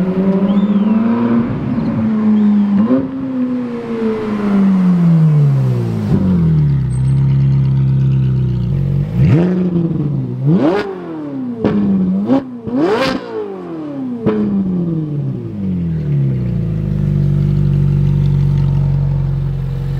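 Ferrari 458 Italia's flat-plane-crank V8 through an iPE exhaust, accelerating with its pitch rising and then falling away. Around the middle come three quick sharp revs, each climbing high and dropping back. Near the end it settles to a steady cruise.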